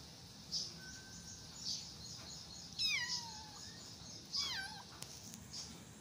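Tabby kitten meowing twice, high-pitched calls that fall in pitch, about three and four and a half seconds in. Short faint high chirps recur about once a second underneath.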